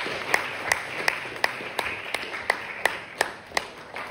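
Audience applauding, with sharp single claps standing out at an even beat of nearly three a second. The applause dies away toward the end.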